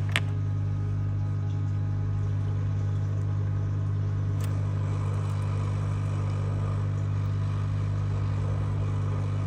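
A steady low hum that does not change, with a faint tick about four seconds in.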